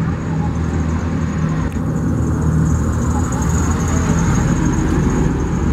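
Road traffic with a heavy diesel engine running at a steady pitch, and a car passing.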